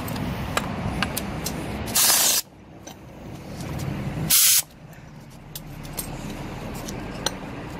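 Two short hissing bursts, each about half a second, from a pneumatic wrench undoing the bolts that hold the fan clutch to a truck's cooling fan, over a steady low rumble.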